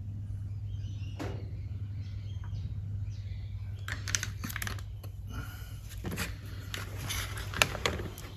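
Small handling clicks and rustles over a steady low hum, the clicks starting about four seconds in.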